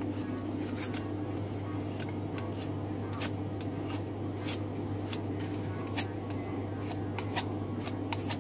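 A butcher's knife cutting and scraping meat away from lamb rib bones: a run of short, irregular ticks and scrapes. A steady low hum runs underneath.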